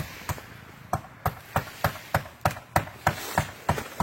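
Hammer striking repeatedly in a steady rhythm, about three sharp blows a second.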